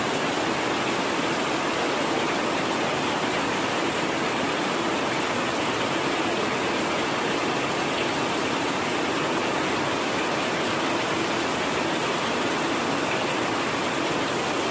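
Heavy rain pouring down steadily, an even hiss with no break.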